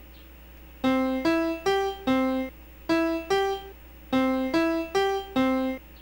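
Software piano in the LMMS music program playing short rising figures of three notes, repeated, starting about a second in.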